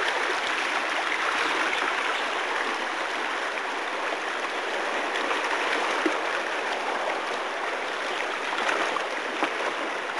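Fast-flowing river water rushing and gurgling steadily around a raft.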